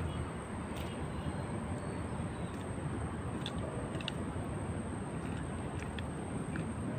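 Steady outdoor background noise, fairly low, with a faint high steady tone and a few faint ticks.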